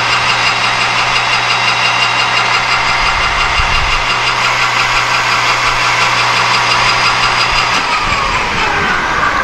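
Metal lathe running with its spindle turning a brass workpiece in a three-jaw chuck: a steady motor hum with gear whine above it. About eight seconds in the motor is switched off, and the whine falls in pitch as the spindle winds down.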